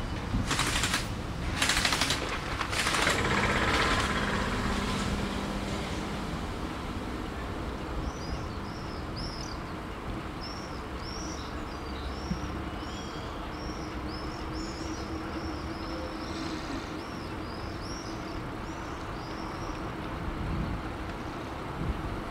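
Steady wind and rolling noise from a moving bicycle, with several loud hissing bursts in the first three seconds. From about 8 to 16 seconds in, small birds chirp in a quick repeated series.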